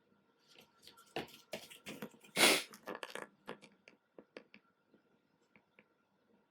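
A mini rabbit chewing its food, a string of irregular crisp crunches, with one much louder, sharper burst about two and a half seconds in.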